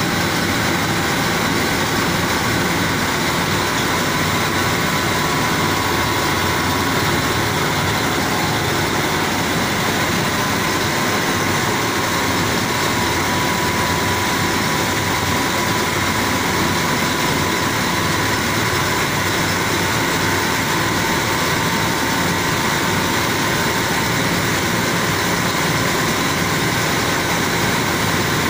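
Rice mill running: its drive engine and the milling machinery make a loud, even mechanical noise with a few steady high tones through it.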